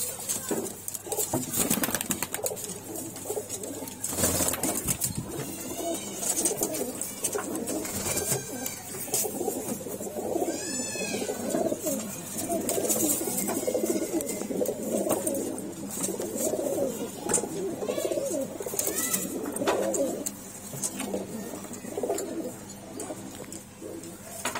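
A flock of Moradabadi bhure domestic pigeons cooing, several birds at once in steady overlapping calls.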